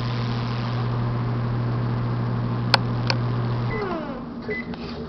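Microwave oven running with a steady low hum, a sharp click in the middle, then the hum cuts off suddenly near the end, followed by a couple of short high beeps.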